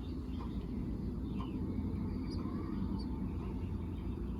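Faint, short bird chirps scattered over a steady low rumble of background noise.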